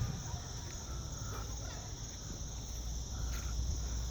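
Steady high-pitched chorus of insects, with a low rumble underneath and a couple of faint short chirps.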